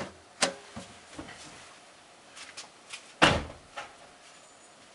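Clicks and knocks through the car's body as the fuel tank is opened off camera to release its pressure: a sharp click about half a second in, a few lighter knocks, and one loud thump a little after three seconds in.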